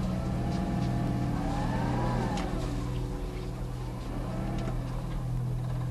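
Sailing yacht's inboard engine running steadily while manoeuvring off a pontoon, its revs rising and falling back about two seconds in and again a little later, with a few light clicks.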